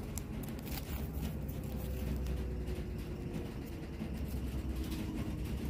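A low steady rumble with a faint hum that slowly sinks in pitch. Over it come light rustles and clicks of paper-wrapped first-aid packets being fingered inside a zippered pouch.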